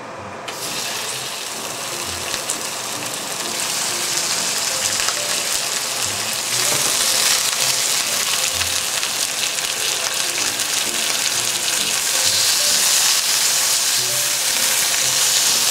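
Slices of meat sizzling as they fry in an oiled frying pan; the sizzle starts about half a second in and grows gradually louder.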